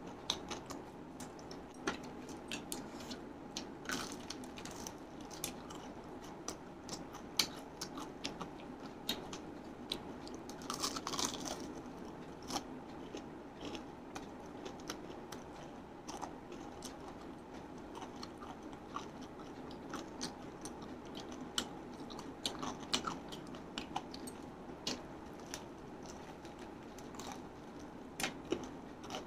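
Close-up biting and chewing of crispy fried chicken, the crunchy coating crackling in many small sharp crunches, with a denser run of crunching about eleven seconds in. A steady low hum runs underneath.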